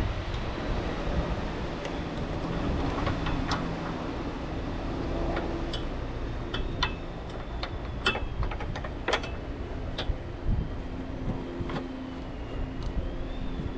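Scattered light clicks and knocks as a plastic battery insulator is fitted around a car battery, over a steady background hum.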